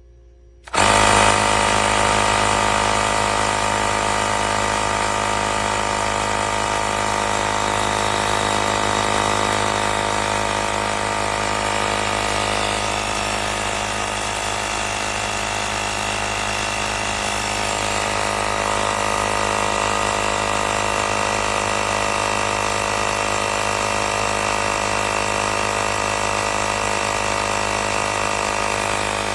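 Small portable tire-inflator air compressor switching on and running at a steady pitch with a loud, even buzz.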